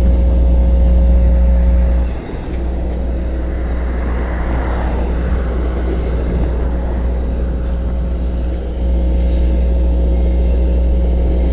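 Freight train cars of a CN intermodal train rolling past, a steady low rumble with a brief dip about two seconds in.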